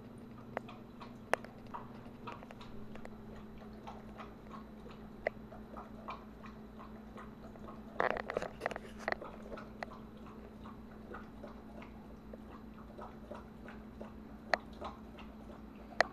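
A dog eating from a plastic bowl in a raised feeder: irregular crunching and clicking of chewing, with a short burst of louder clatter about eight seconds in.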